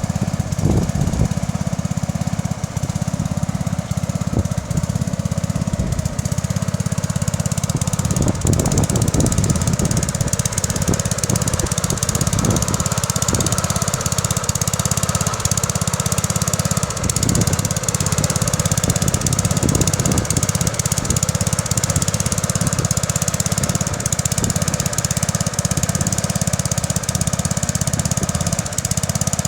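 Bolens 1050 garden tractor engine running steadily while ploughing, with irregular knocks and clatter mixed in, most of them in the middle stretch.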